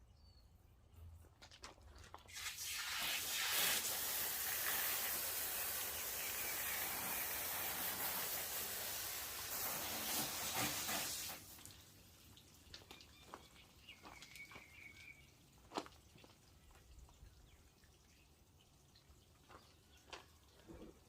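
Water running or spraying with a steady hiss for about nine seconds, then cut off suddenly, followed by scattered drips and small clicks.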